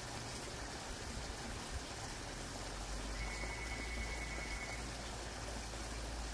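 Steady rushing hiss of outdoor background noise with a low rumble of wind on the microphone. A faint, thin high tone sounds for about a second and a half near the middle.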